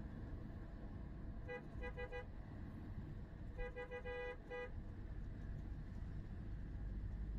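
Steady road rumble inside a moving car. A vehicle horn sounds two bursts of quick short toots: about four toots a second and a half in, then a longer run of about six toots around four seconds in.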